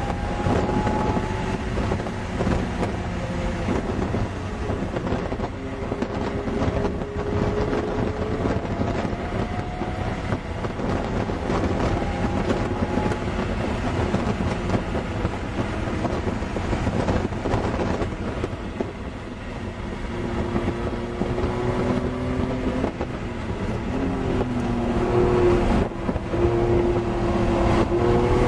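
Car engine heard from inside the cabin at speed on a racetrack, its pitch climbing slowly in long pulls over steady road and wind noise. It eases off briefly about two-thirds of the way through, then pulls louder again near the end.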